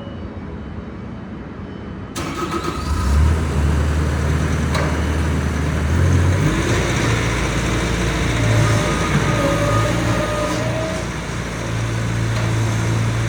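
Bobcat S570 skid steer's diesel engine starts about two seconds in and runs loud and steady, its pitch shifting a few seconds later.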